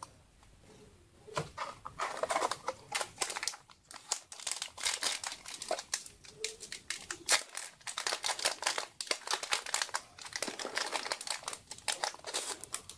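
Yu-Gi-Oh! booster pack's foil wrapper crinkling and tearing as it is opened and the cards are handled, starting about a second and a half in.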